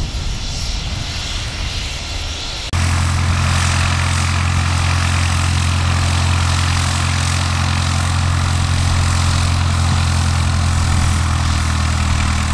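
A large engine running steadily with a deep, even hum. It starts abruptly a little under three seconds in, after a stretch of thinner, noisier engine sound.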